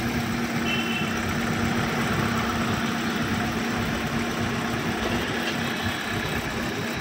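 Hyundai car engine idling steadily, heard close up in the open engine bay. It is running fine with its wiring freshly repaired.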